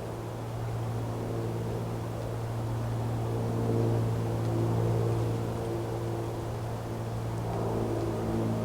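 Low sustained drone of ambient music: a steady low hum with higher held tones coming in about a second in and swelling, without any change in pitch.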